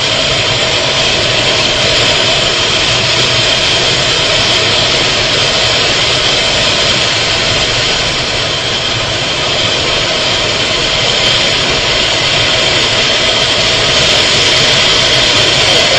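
Steady roar of a car driving at high speed: engine, wind and tyre noise blended into one even sound.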